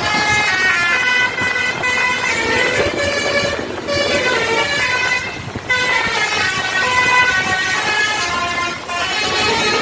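Telolet 'basuri' multi-trumpet bus horn playing a quick melody of stepped, held notes, with a few brief breaks between phrases.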